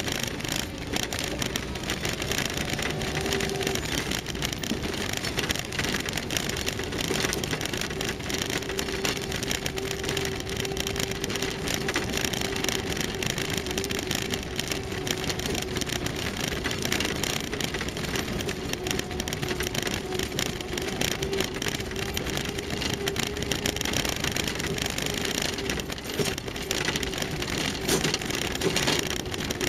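Land Rover Series III driving along a rough gravel track, its engine running steadily with a constant whine, under a rough hiss with many small crackles.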